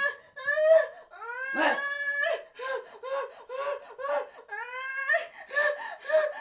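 A high-pitched voice crying: a couple of long sliding wails, then short rising-and-falling sobs repeating about two or three times a second, before another long wail near the end.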